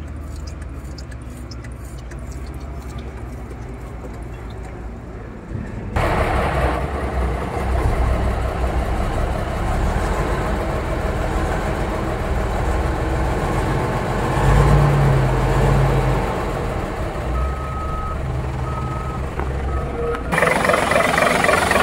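Cummins NHC250 six-cylinder diesel of a REO 5-ton military truck, freshly overhauled, starting for the first time. A steady low hum gives way to the engine coming to life about six seconds in, and it keeps running with a rise in revs midway. A short beeping tone sounds a few times near the end.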